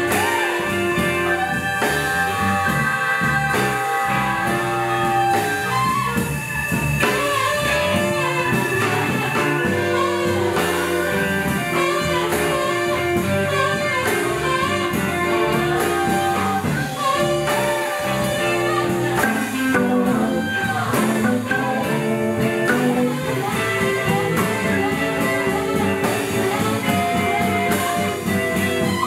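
Live blues band playing a jump-blues song, with a steady full-band sound of held notes and a driving rhythm.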